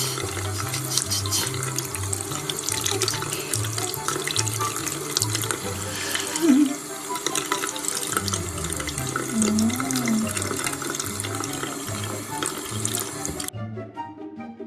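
Water running from a tap, a steady splashing hiss that cuts off suddenly near the end, over background music with a repeating bass line.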